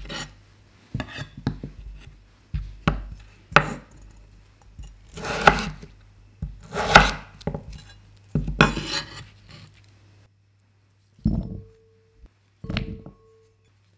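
Kitchen knife cutting through raw potato against a wooden cutting board: a run of uneven cuts, some drawn out as the blade slices through. Near the end, potato sticks drop into a glass bowl twice, and the bowl rings briefly each time.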